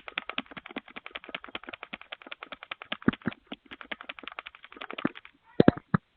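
Rapid knocking on a front door, about eight to ten sharp knocks a second, ending with two or three heavier bangs near the end.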